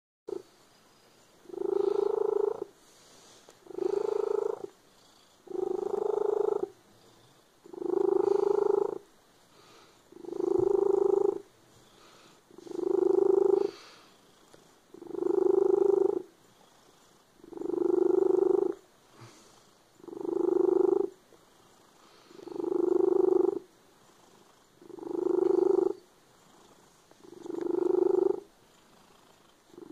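Domestic cat purring loudly, the purr coming in even surges about a second long, roughly every two and a half seconds.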